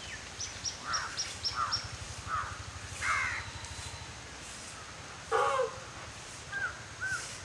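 Birds calling: a quick run of short high chirps in the first two seconds, then several harsh, caw-like calls, the loudest about five seconds in, and two short notes near the end. A low steady hum runs underneath for the first half.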